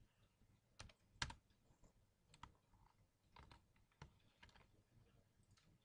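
Faint computer-keyboard typing: a handful of separate keystrokes spread over several seconds, the sharpest just over a second in.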